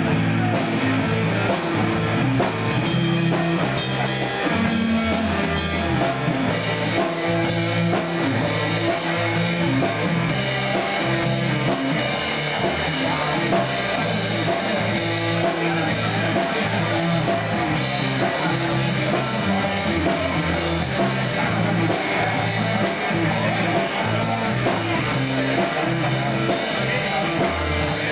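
Live rock band playing a song: electric guitar and electric bass guitar, with a drum beat.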